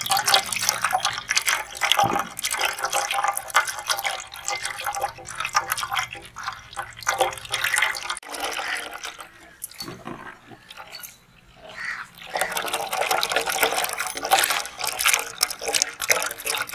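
Pineapple juice pouring in a thin stream into a steel pot of foamy juice, splashing and bubbling. It goes much quieter for a couple of seconds past the middle, then the pouring picks up again.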